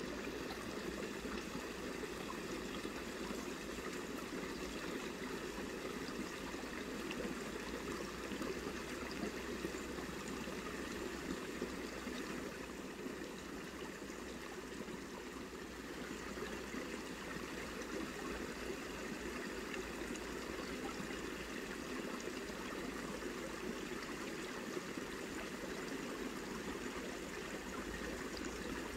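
Steady rush of running water from a nearby stream, with no breaks or separate events.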